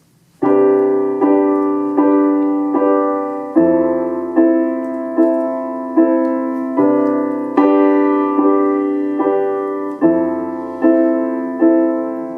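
Solo piano introduction to a song: steady repeated chords struck about every 0.8 s, each fading before the next, with the bass note shifting a few times. It starts about half a second in after a brief hush.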